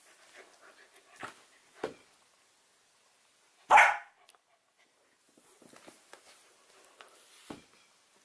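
Samoyed puppy giving one short bark about four seconds in, a demand bark to get her dropped toy picked up, among soft rustling and a few light knocks.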